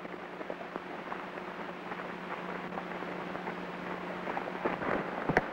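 Crackling hiss of an old optical film soundtrack over a steady low hum, with scattered irregular clicks that grow louder and a few sharper ones near the end.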